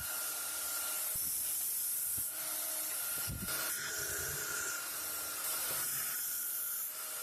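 Electric belt sander running steadily against an MDF panel, sanding its edge flush: an even, hissing grind with a faint motor whine underneath.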